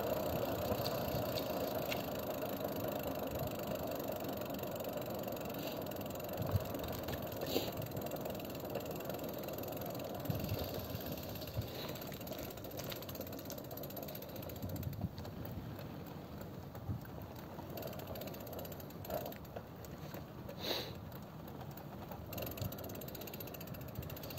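Steady running noise of a vehicle on the road that slowly eases off, with scattered light clicks and ticks.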